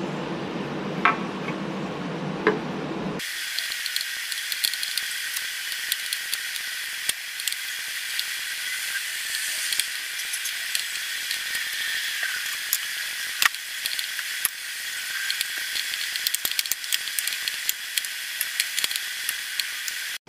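Light clicks, taps and scrapes of a silicone spatula and a knife against a ceramic plate and a glass bowl as frosting is spread, over a steady hiss. For the first three seconds a low hum sits under it instead, switching abruptly to the hiss.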